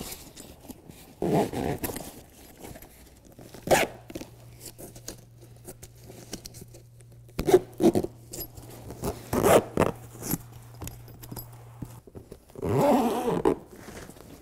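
Zipper along the seam of a BedRug molded carpet truck bed liner being pulled in several short rasping runs, with a longer pull near the end, joining the sidewall piece to the floor piece.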